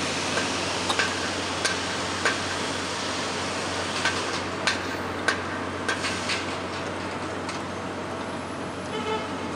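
Hydromill trench cutter on test, its hydraulic drive running as a steady low hum and rush. Over it comes a string of sharp metallic clanks, unevenly spaced about half a second apart, which stop after about six seconds.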